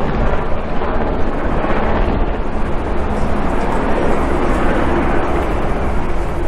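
Two Black Hawk helicopters flying over, a steady low rotor drone.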